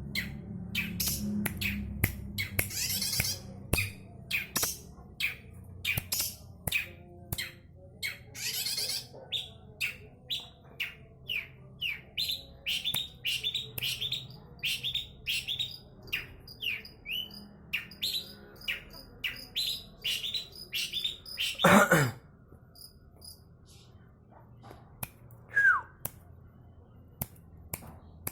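Long-tailed shrike (cendet) calling in a rapid run of short, sharp chirps, two or three a second. About three-quarters of the way through comes one loud note sweeping downward, after which the calling thins to a few scattered notes.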